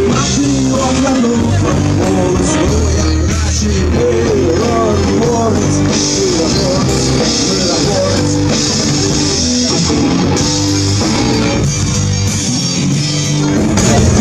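Live rock band playing on an open-air stage, with electric guitar, bass, drums and accordion together at a steady loud level.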